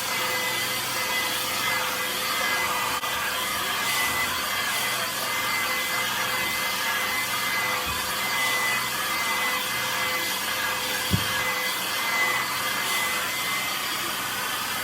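Handheld hair dryer running steadily, a constant rush of air with a steady whine. There are a couple of soft bumps from handling along the way.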